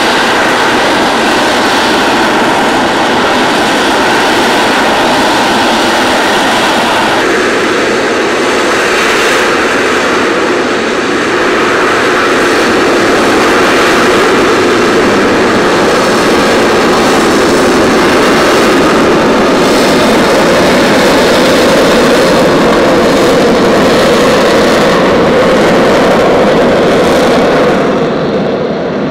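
AV-8B Harrier II's Pegasus turbofan jet engine running loud and steady as the jet hovers and flies off. The tone of the roar shifts abruptly about seven seconds in and eases a little near the end.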